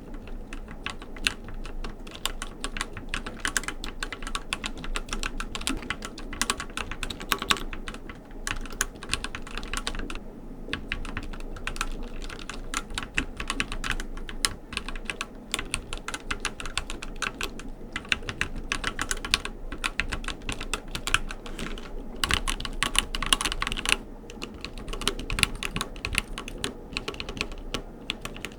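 Typing on a Keychron Q6, a full-size mechanical keyboard in a heavy full-metal case: rapid runs of keystroke clicks, broken by a few short pauses.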